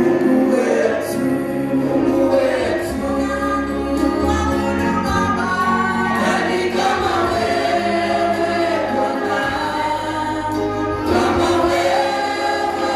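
Choir singing a gospel song with instrumental backing, steady throughout.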